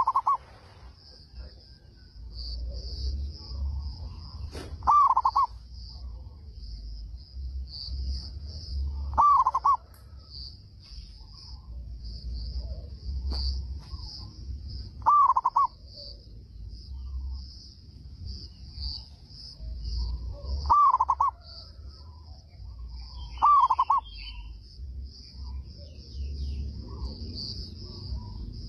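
Zebra dove cooing: six short, loud coo phrases a few seconds apart. A steady high chirring of insects and a low rumble run underneath.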